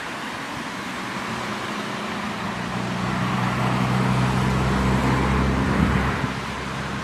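A car engine passing by, a low hum that grows over a few seconds and fades near the end, over a steady rush of wind on the microphone.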